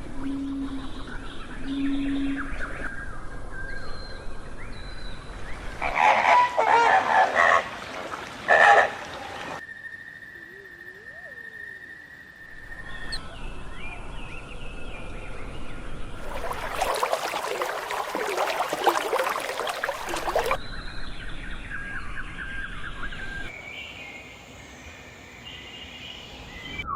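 Outdoor recordings of large birds calling, in several short segments that change abruptly. The loudest parts are two noisy rushing passages, one about six seconds in and a longer one past the middle.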